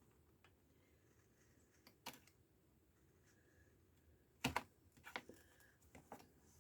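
Quiet hand-work on a sewn and glued book binding: a few scattered faint clicks and snips, the loudest about four and a half seconds in.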